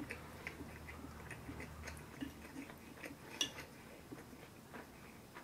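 Faint clicks and taps of wooden chopsticks against a ceramic plate as they pick apart simmered mackerel in miso sauce, with soft chewing. One sharper click comes about three and a half seconds in.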